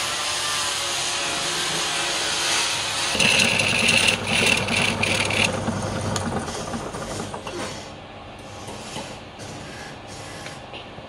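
Wood lathe spinning a large wooden platter blank while a hand-held gouge cuts into it. From about three seconds in there is a loud, rough scraping cut for a couple of seconds. It then fades to a quieter run with a few short scrapes near the end.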